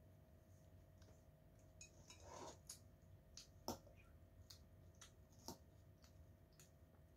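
Faint clinks of a metal fork against a ceramic bowl while eating salad: a short scrape about two seconds in, then scattered light taps, the sharpest nearly four seconds in.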